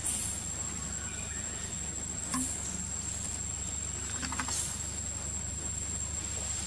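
Insects droning steadily at one high pitch over a low background hum, with a few brief hissy noises about two and four and a half seconds in.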